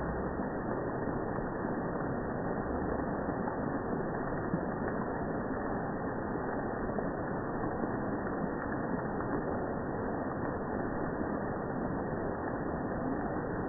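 Steady low rush of rain and dripping water in jungle, slowed down along with the slow-motion footage, so it sounds deep and dull. A few faint ticks of single drops stand out, about five times.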